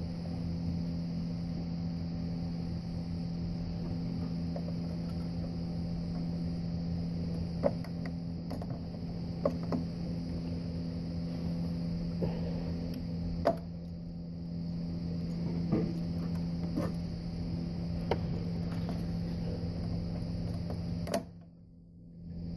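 A steady mechanical hum with several sharp clicks and taps scattered through it, from hands handling the plastic thermostat housing and coolant hoses in the engine bay. The hum drops away briefly about a second before the end.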